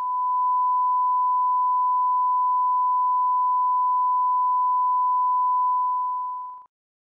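Broadcast line-up test tone: one steady, unchanging pitch accompanying a tape's countdown clock leader. It fades out near the end.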